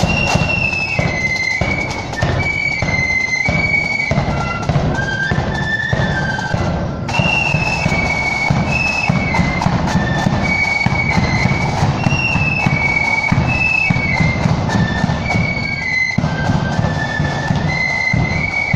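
Marching flute band playing a tune on flutes over a steady beat of side drums, with a short break in the melody about seven seconds in.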